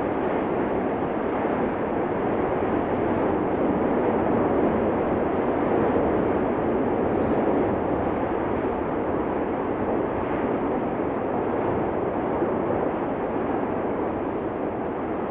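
Continuous deep rushing roar of the Cumbre Vieja fissure eruption, like a jet engine or passing train, holding steady without breaks or separate blasts.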